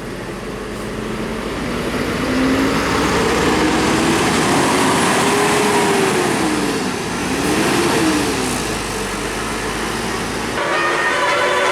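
A bus climbing past on an uphill road, its engine note rising and falling over heavy road noise. About ten and a half seconds in, a multi-tone bus 'telolet' horn starts sounding several notes at once.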